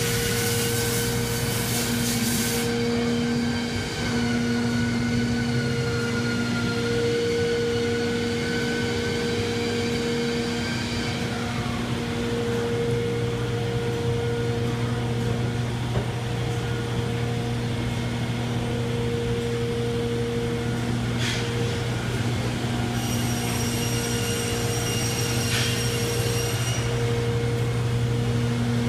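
Cabinet factory machinery running steadily: a constant low hum with several steady higher tones over it, and a higher whine that joins for a few seconds near the end.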